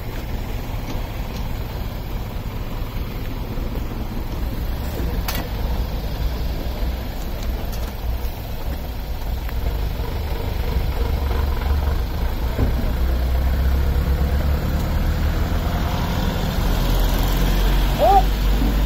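A large vehicle's engine idling steadily, its low rumble growing louder in the second half. A voice briefly comes in near the end.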